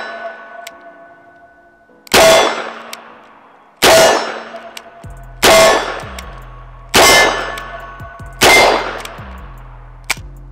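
Five revolver shots, about one and a half seconds apart, each followed by the ringing clang of a steel plate target being hit.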